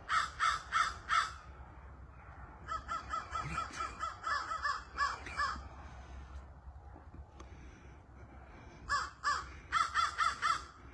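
Crows cawing: four caws at the start, a longer run of caws in the middle, and another run near the end.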